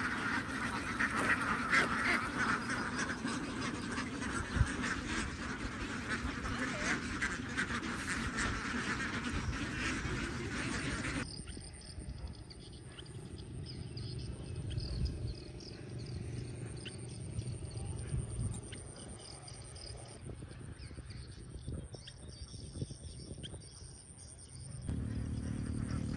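A large flock of white domestic ducks quacking together in a dense, continuous din. About eleven seconds in, the quacking drops away abruptly to a much quieter background.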